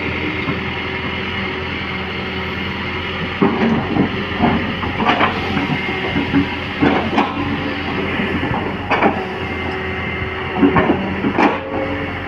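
Kobelco SK220 excavator's diesel engine running steadily, with irregular short clanks from about three seconds in.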